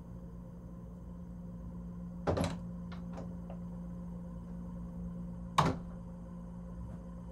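Front door coming open with a clunk of the latch and a few small clicks, then, about three seconds later, shutting with a louder sharp bang, over a steady low hum.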